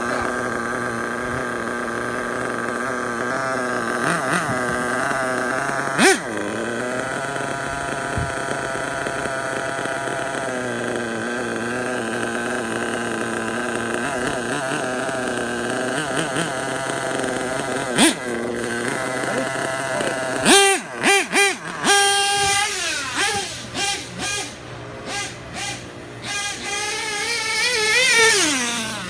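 Dynamite .28 two-stroke nitro engine of an RC truggy running at a steady high pitch, then revving up and down in quick blips over the last several seconds, with a few sharp knocks.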